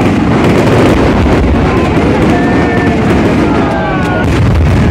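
Aerial fireworks going off in quick succession: a dense, unbroken run of bangs and crackling over a deep rumble.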